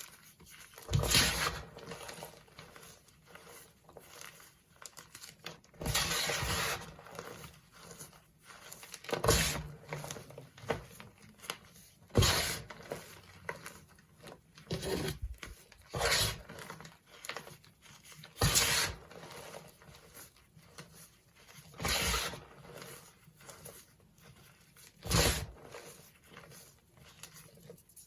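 Dyed gym chalk blocks being crushed: about nine crunches a few seconds apart, some sharp and some drawn out for about a second, with faint crumbling between them.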